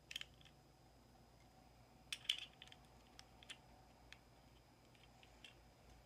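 Small plastic parts of a magnetic child-proof cabinet lock being handled, giving light clicks and taps: one just after the start, the loudest cluster about two seconds in, then a few fainter ticks.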